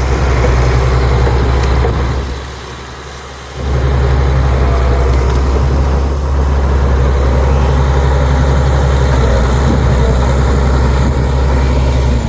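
Komatsu D65PX bulldozer's diesel engine running with a steady low drone, dropping briefly quieter about two seconds in and coming back about a second and a half later.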